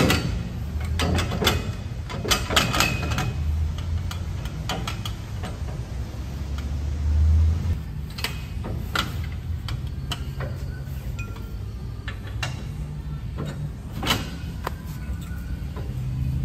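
Metal clinks and knocks from a crane's steel stabiliser leg and outrigger beam being worked by hand. A quick run of knocks comes in the first few seconds, then single clanks spaced out, with a low rumble on and off in the first half.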